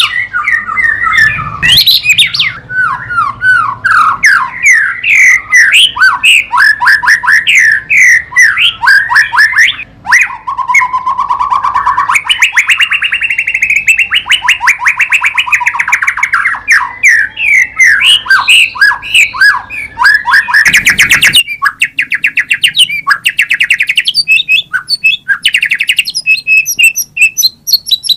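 White-rumped shama (murai batu) singing a loud, continuous run of quick, varied, sliding whistled notes, with a long buzzy trill in the middle. About 21 seconds in there is a sudden break, after which the notes are higher and more spaced out.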